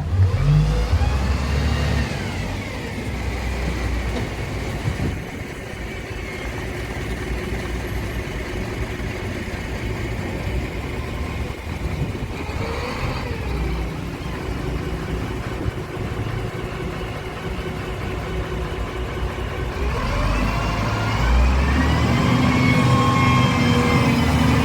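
A heavy vehicle's engine running and revving: its pitch dips early, swells and falls back about halfway, then climbs about four fifths of the way through and stays higher.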